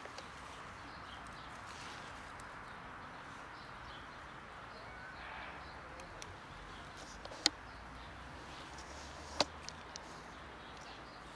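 Steady outdoor background noise with two sharp clicks, the second about two seconds after the first, and a few fainter ticks.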